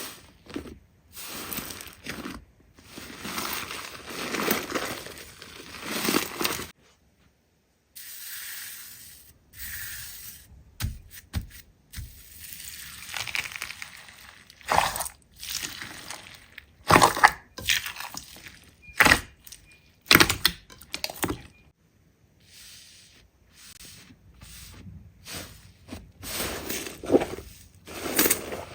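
Slime being squeezed, pressed and stretched by hand: irregular squishes, pops and crackles, with a brief silent break about seven seconds in.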